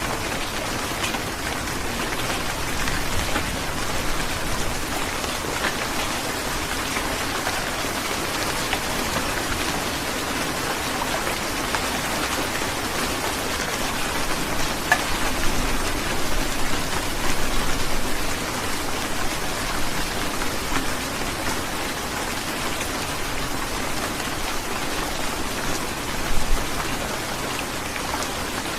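Heavy rain falling steadily as a dense hiss, with occasional sharper drop hits.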